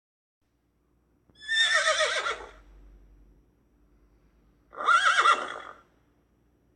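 Horse whinnying twice, each a wavering call of about a second, the first falling in pitch.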